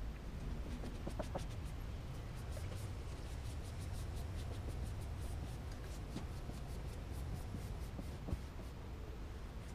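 Vinyl wrap film being rubbed and squeegeed down onto a car's rear door: a continuous run of faint scratchy strokes over a steady low rumble, with a single knock about eight seconds in.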